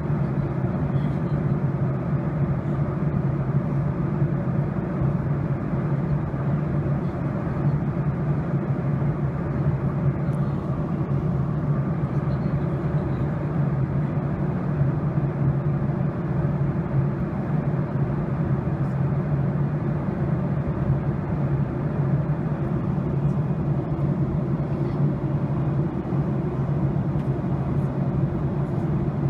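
Steady jet airliner cabin noise heard from a window seat during descent: an even engine and airflow rush with a constant low hum.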